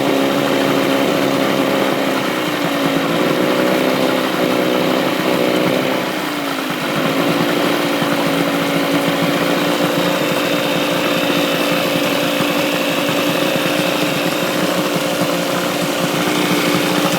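9.9 hp Evinrude two-stroke outboard motor running with its cover off. The engine speed sags slightly about two seconds in, then drops to a lower, steady speed about six seconds in and holds there.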